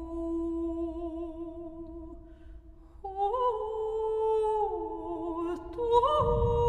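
Mezzo-soprano voice singing unaccompanied. A long low note is held and fades away. After a short break a new phrase starts with held notes that slide downward, then step up to a higher sustained note near the end.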